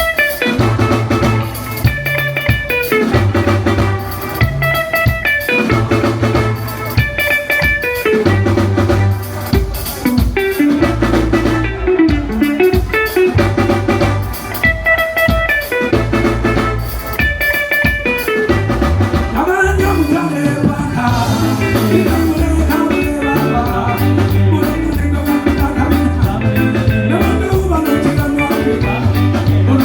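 Band music with a steady beat: drum kit, a repeating bass line and guitar, played through a sound system during a sound check.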